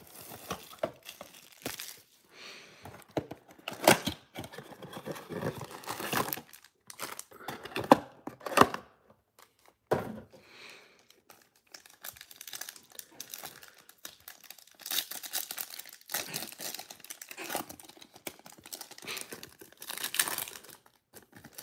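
Plastic shrink-wrap on a Panini Prizm blaster box crinkling as it is peeled off, then foil trading-card packs rustling and a pack being torn open, in irregular crackles and sharp rips.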